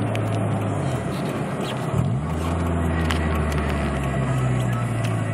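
Mazda MX-3's 1.6-litre four-cylinder engine running with a steady drone. Its pitch dips and swings back up between one and two seconds in, then holds steady at a lower note.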